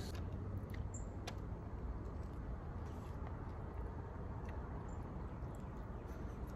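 Soft mouth sounds of people eating chicken feet by hand: a few faint clicks and smacks of chewing and sucking. Under them runs a steady low background rumble.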